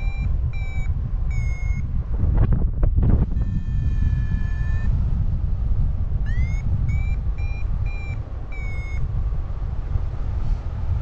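Paragliding variometer beeping: an upward chirp running into short quick beeps, a longer steady tone a few seconds in, then another chirp and run of beeps, the climb signal of rising in a thermal. Loud wind rushes on the microphone throughout.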